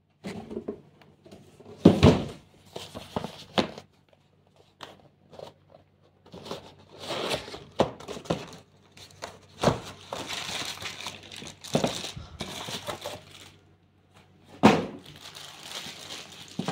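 Cardboard box and plastic bags being handled: a few sharp knocks of cardboard, with stretches of plastic-bag crinkling as a wrapped charger and cable are unpacked.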